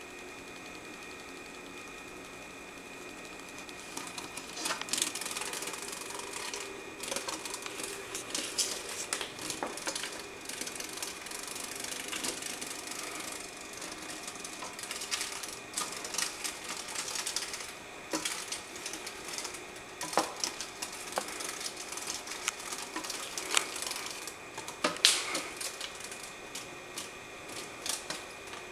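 A large moth fluttering in irregular spells, its wings rattling and tapping against the glass of a terrarium, with a few sharper knocks among the rapid clicks.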